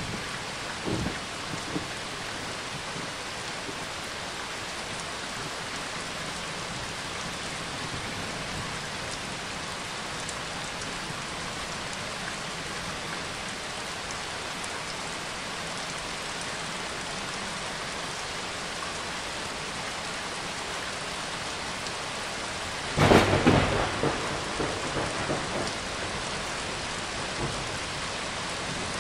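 Steady rain falling, with one loud clap of thunder near the end that rumbles away over a couple of seconds.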